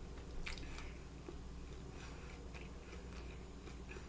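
A person chewing crispy-coated Korean fried chicken close to the microphone: a run of short, soft crunches, the loudest about half a second in.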